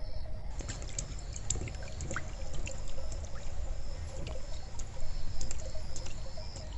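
Water splashing and trickling in a run of quick irregular spatters. Crickets chirp in a steady pulsing pattern behind it.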